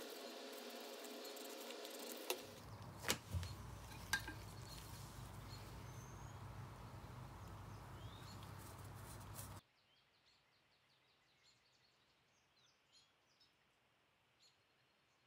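Faint steady background hiss and hum with a few sharp clicks about three and four seconds in. The sound cuts off abruptly to near silence about ten seconds in, leaving only faint high chirps.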